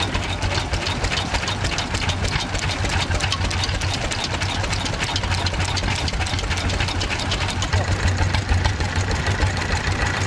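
Vintage stationary engines running at idle, a quick steady ticking beat of their firing and valve gear over a low hum.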